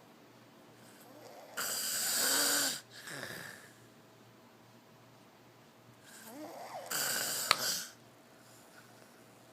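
Snoring: two long, loud snores about five seconds apart, each a rough rasp with quiet breathing-room between them.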